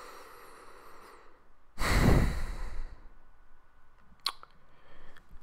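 A man's long sigh breathed out close into a handheld microphone, loudest about two seconds in and trailing off, after a softer intake of breath. A brief click follows near the end.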